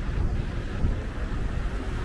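Steady city street traffic noise, with a low, uneven rumble of wind on the microphone.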